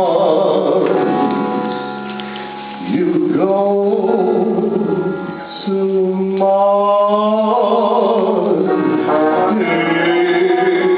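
Backing-track music for a slow ballad, held notes moving in a melodic line, dipping in loudness twice.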